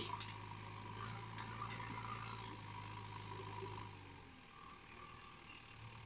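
JCB 3DX backhoe loader's diesel engine running faintly as the machine drives off, a steady low drone that drops away about four seconds in.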